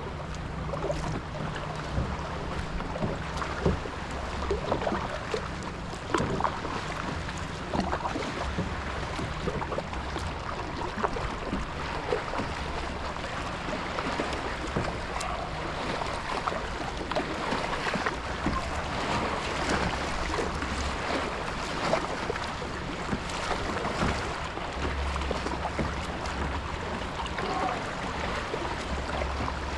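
Water sloshing and splashing around a kayak, with irregular small sharp splashes over a steady wash of water noise.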